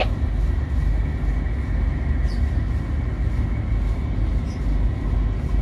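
Ship's engine and machinery running: a steady deep rumble with a faint steady high whine over it.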